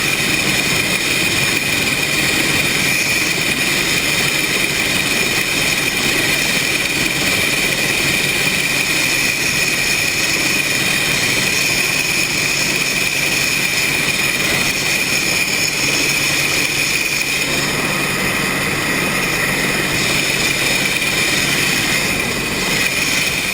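A machine running steadily, with a high, unchanging whine over a steady hiss.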